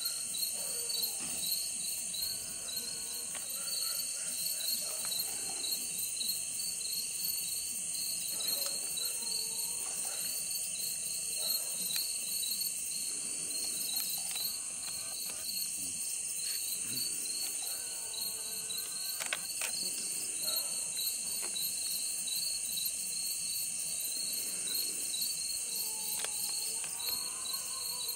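Night-time chorus of crickets and other insects: steady high-pitched trilling with a fast pulsing layer over it, unbroken throughout. Faint rising and falling calls or voices come and go beneath it.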